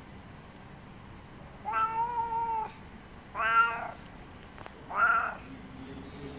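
Tabby cat meowing three times: a long steady meow of about a second, then two shorter ones.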